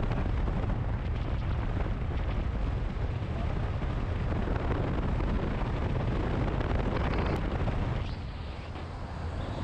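Wind buffeting and rumbling on the microphone of a camera mounted outside a moving car, mixed with road noise. It is steady and heavy, easing slightly about eight seconds in.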